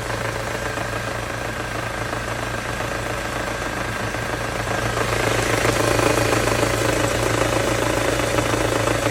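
Ford Mondeo Mk4 2.3 four-cylinder petrol engine idling with a knock, heard loudest between the first and second cylinders; the cause is unknown to the owner. The sound grows louder about halfway through.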